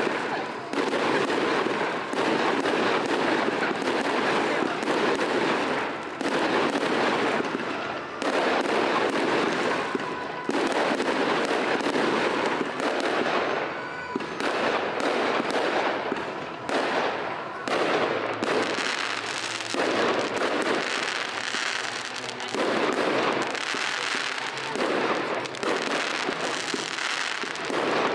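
Fireworks display: a rapid, near-continuous run of bangs and crackles as rockets and shells burst overhead.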